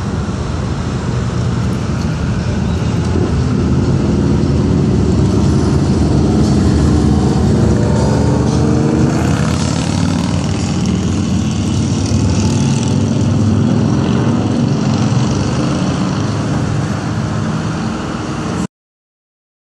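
Road traffic passing close by, one vehicle after another: engines and tyre noise, louder in the middle with an engine tone rising and falling as a vehicle goes past. The sound cuts off suddenly near the end.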